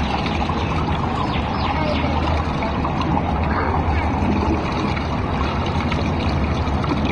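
Swimming-pool water lapping at a microphone held at the water's surface: a steady rush with a low rumble, with faint voices in it.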